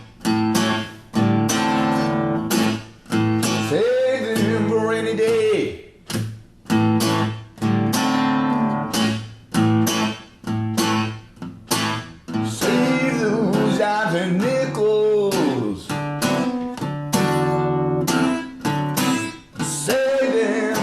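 Blues guitar music, plucked notes and chords, with held notes that glide up and down in pitch a few times.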